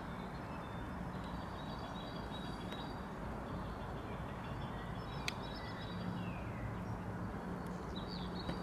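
Outdoor ambience: a steady background rush with faint bird chirps scattered throughout and a single sharp click about five seconds in. A low steady hum grows stronger in the second half.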